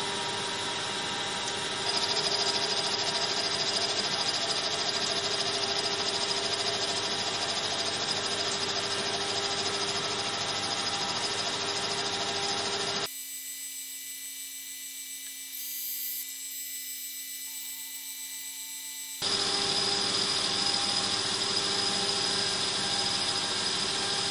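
Metal lathe running at 800 RPM and taking a light 0.03 mm turning cut along an aluminium bar under power feed: a steady machine whir with a high steady whine that comes in about two seconds in. For several seconds in the middle it gives way to a quieter, thinner hum, then the full running sound returns.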